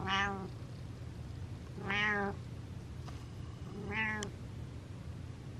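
Domestic cat meowing three times, short meows about two seconds apart.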